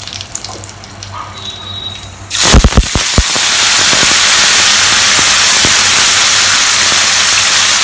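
Bay leaves and dried red chillies crackling in hot mustard oil in a kadai. A little over two seconds in, a wet onion-ginger paste is tipped in with a few knocks, and the oil sizzles loudly and steadily as the water in the paste hits it.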